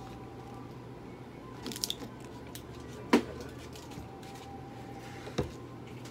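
Steady low room hum with a few sharp clicks and knocks from equipment handled at a stainless steel exam table: a short clatter under two seconds in, the loudest click about three seconds in, and a smaller one near the end.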